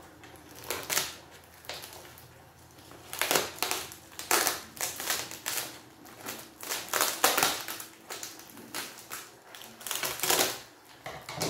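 Crinkling and rustling of plastic film wrapping being pulled and handled around potted strawberry seedlings, in irregular crackling spurts that come thickest after about three seconds.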